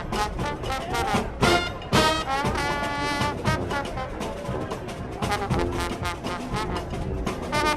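Music played by brass instruments over a busy percussion beat, with a chord held for about a second and a half partway through.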